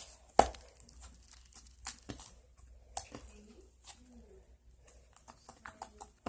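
Sticky slime being kneaded and pulled in the hands, giving irregular wet clicks and snaps, the loudest about half a second in.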